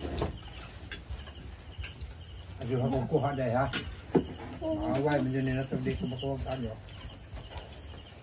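Crickets chirping in a steady pulsing trill throughout. Midway a person talks briefly, and there is one sharp click about four seconds in.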